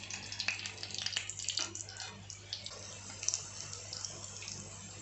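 Oil sizzling and crackling around alu vadi slices shallow-frying in a pan, with sharp spitting pops that are busiest in the first two seconds and thin out after.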